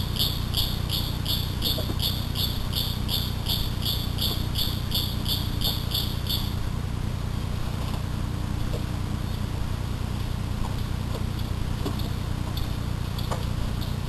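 A high, rhythmic insect-like chirping, about three pulses a second, stops about six and a half seconds in. A steady low hum runs underneath.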